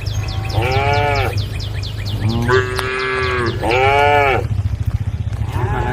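Cattle mooing: several drawn-out calls that rise then fall in pitch, some overlapping, over a steady low rumble.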